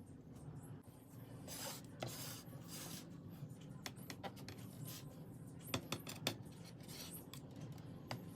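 Kitchen handling sounds of cutlery and dishes: a few short scraping strokes, then a scatter of light clinks and taps.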